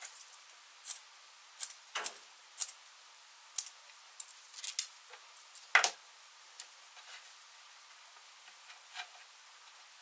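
Small spring scissors of a Swiss army knife snipping and clicking through cotton gauze bandage, a string of short sharp clicks, with a knock about six seconds in as the knife is set down on the wooden table. After that only faint rustling of the gauze being handled.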